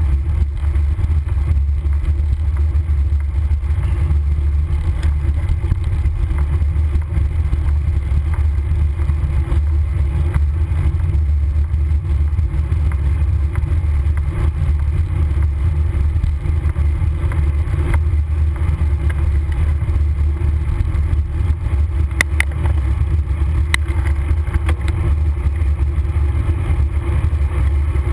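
Steady low wind rumble buffeting the microphone of a camera mounted on a moving road bicycle, mixed with road and tyre noise. A few faint clicks come near the end.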